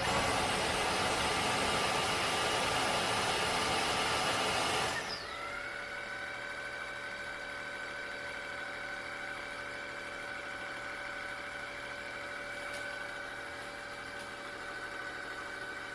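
Tineco Floor ONE S7 Pro wet-dry floor cleaner running its self-cleaning cycle at the pipe-cleaning stage: a loud rushing suction for about five seconds, then it drops suddenly to a quieter, steady motor whine.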